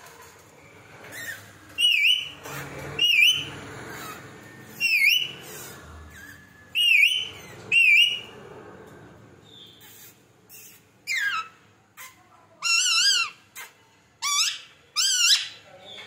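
Rose-ringed parakeet (Indian ringneck) calling: a string of short, shrill whistled calls, about five in the first half, then a few longer, wavering calls that rise in pitch in the second half.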